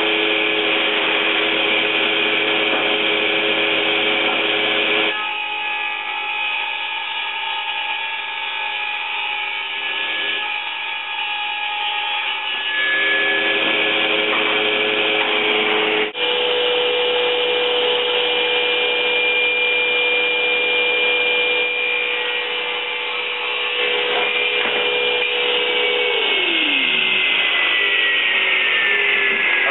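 Electric power saw cutting a half-inch MDF board to size. The motor whines steadily, drops in level for several seconds midway, and winds down with a falling pitch near the end.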